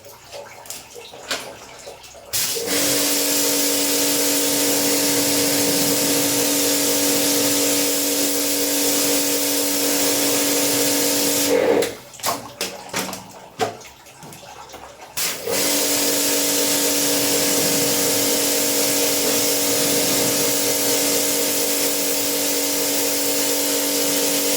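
Pressure washer spraying water, with its pump motor humming under the hiss. It runs in two long steady spells of about nine seconds each, stopping for a few seconds in between.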